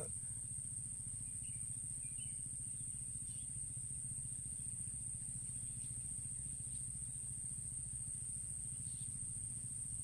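Steady high-pitched insect drone over a low steady rumble, with a few faint short chirps about two seconds in.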